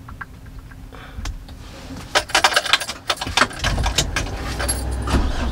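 Keys jangling on the key ring in a vehicle's ignition. A little over halfway through, the engine starts and keeps running, with the keys still jingling over it.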